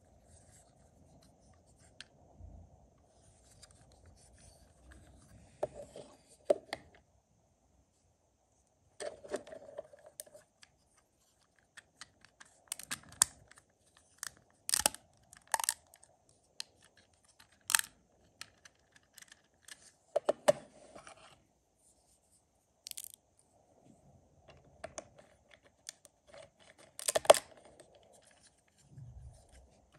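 LEGO Technic plastic parts (gears, axles and bricks) handled and fitted together by hand: irregular sharp clicks and short rattles, the loudest click near the end.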